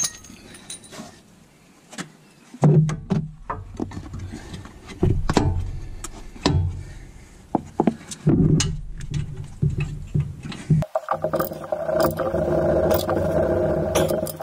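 Metal knocks and clunks as a new front shock absorber is worked into place on a pickup's front suspension. The last three seconds are a steady rattling as its lower mounting bolt is done up with a spanner.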